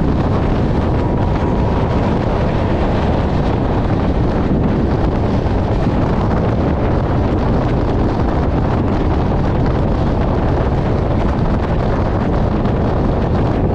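Steady, loud wind rush over a microphone held outside a moving double-decker express train, with the train's running rumble beneath it.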